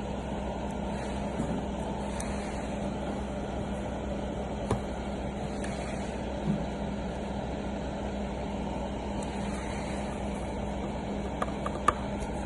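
Steady low background rumble with a constant hum, broken by a few light clicks, the sharpest near the end.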